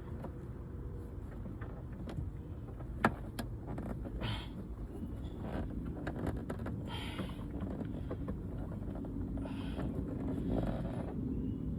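Plastic interior trim and headliner clips being pried and pulled by hand, with a sharp click about three seconds in and several short scraping rustles, over a steady low rumble.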